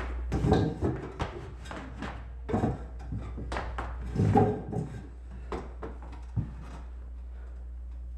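A string of knocks and wooden bumps as an acoustic guitar is picked up and a man settles onto a kitchen stool, over a steady low hum. The knocks stop about six and a half seconds in.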